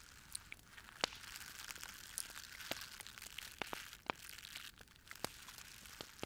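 Fire crackling: irregular sharp pops and snaps over a soft steady hiss, the loudest pop about a second in.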